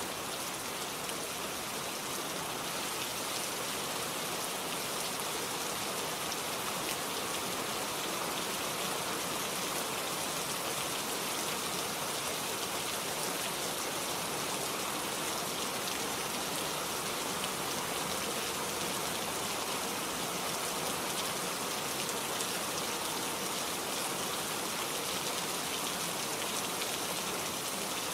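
Steady rain falling on a forest, an even hiss of many drops pattering on leaves and surfaces.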